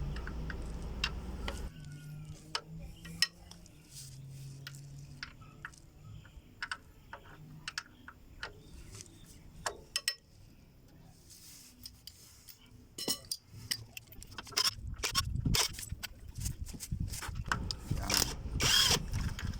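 Scattered metallic clicks and clinks of a hex key and loose screws as the four Allen screws holding the cartridge filter of a Nissan CVT transmission are taken out.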